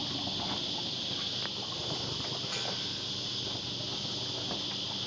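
Outboard motor idling in neutral with a steady low hum, under a steady high-pitched hiss, with a few faint clicks.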